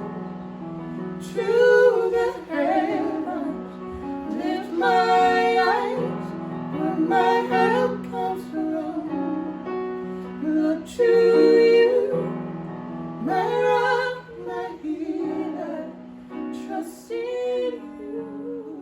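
Gospel worship song: a woman sings drawn-out, wordless lines over a steady instrumental accompaniment, growing quieter near the end.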